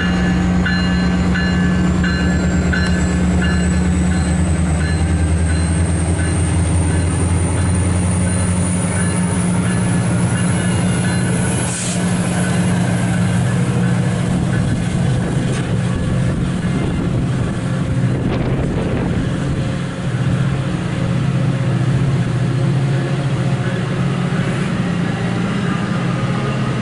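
MARC commuter train passing close by: its diesel locomotive's engine drones heavily for the first several seconds, then the bilevel passenger coaches roll past on the rails in a steady rumble. A high whine rises steadily in pitch over roughly the first ten seconds as the train picks up speed.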